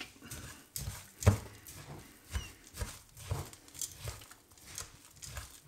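Thick muesli-bar mass of oats, nuts and cocoa nibs being mixed in a bowl: irregular knocks, scrapes and rustles, the loudest about a second in.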